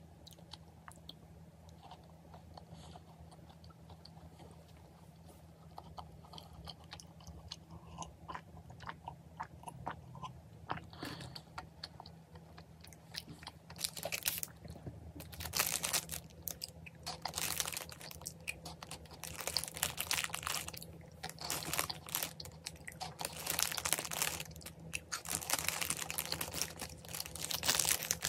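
Close-miked eating: soft chewing of a crumbly snack at first, then from about halfway louder crunching and rustling bursts, with a plastic snack bag being handled near the end.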